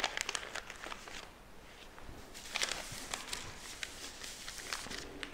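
Paper sheets and tulle rustling and sliding on a tabletop as they are handled, in two spells of soft rustles, one at the start and one around the middle.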